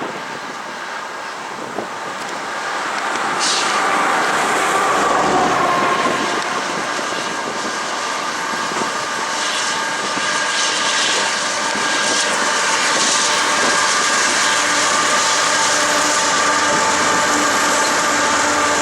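Two GE AC4400CW diesel-electric locomotives leading a coal train, their engines running. The sound grows louder over the first few seconds as they approach, then holds steady with a sustained whine over the engine drone.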